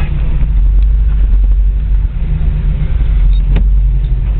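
Car engine and road noise heard from inside the cabin while driving: a steady, loud low drone, with a single sharp click about three and a half seconds in.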